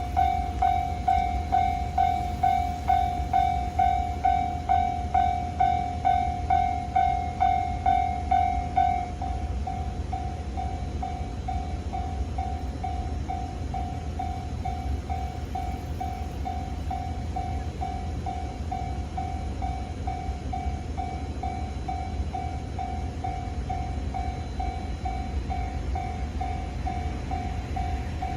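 Japanese level-crossing warning bell ringing in an even pulse of about two strokes a second, loud for roughly the first nine seconds and then softer. A low rumble from the passing JR West 323 series train runs underneath.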